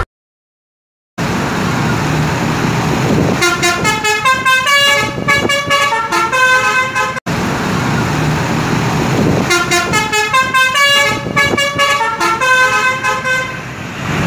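Telolet basuri multi-tone musical horn on a tour bus playing a fast tune of short stepping notes over the rumble of engine and traffic. The tune plays twice, with a sudden cut between the two.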